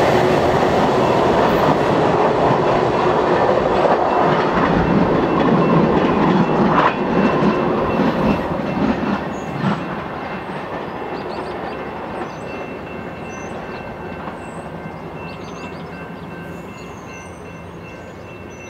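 VIA Rail passenger train running at about 66 mph, its wheels rumbling and clacking on the rails. The sound fades steadily from about ten seconds in as the train draws away.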